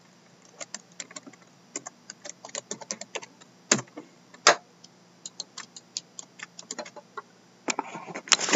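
Computer keyboard typing and mouse clicks while setting up an online randomizer: irregular light clicks, with two louder clicks near the middle and a quicker run of clicks near the end.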